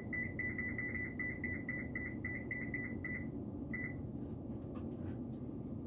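Electronic oven control panel beeping as it is set to 350°: short, high beeps at about five a second for some three seconds, then one more beep shortly after.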